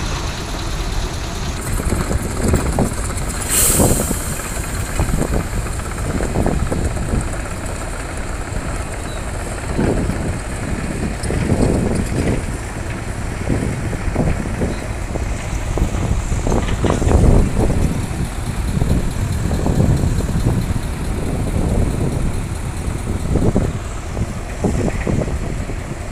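Heavy diesel machinery running: the engines of an excavator and a dump truck working, with irregular knocks and surges. A short hiss comes about four seconds in.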